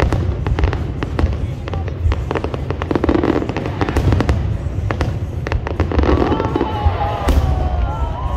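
Aerial fireworks display: a dense run of bangs and crackling bursts over a continuous low rumble, with several tones gliding up and down in pitch near the end.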